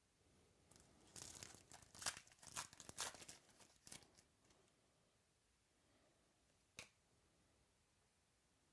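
Trading card pack wrapper being torn open and crinkled for about three seconds, followed a few seconds later by a single short click.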